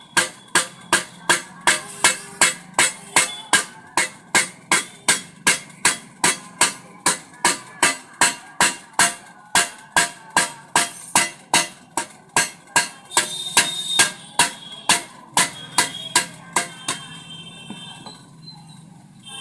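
A hammer striking pressure cooker metal in a steady rhythm, a little over two blows a second, each with a short metallic ring. The hammering stops about seventeen seconds in.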